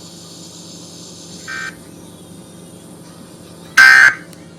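Short, high-pitched electronic alert beeps from a phone sounding a blizzard warning: a faint beep about a second and a half in, then a loud one near the end.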